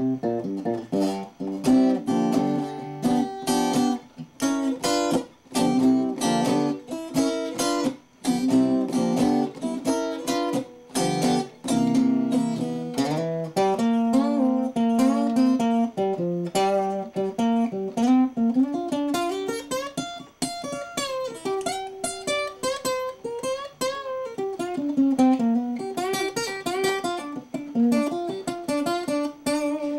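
Cutaway acoustic guitar played solo: a continuous stream of picked single notes and chords, with notes bent up and down in pitch through the second half.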